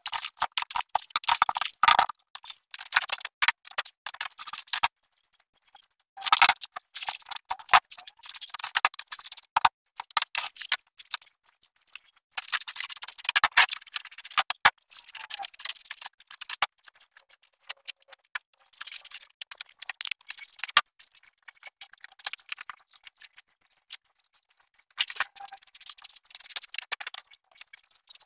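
Straw broom sweeping dry leaves and debris across a hard patio floor, in bursts of brushing strokes with short pauses, mixed with scattered clicks and knocks.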